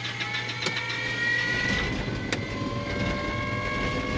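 Small plane's engine starting up: a rising whine with a low rumble building from about a second and a half in, and one sharp click partway through.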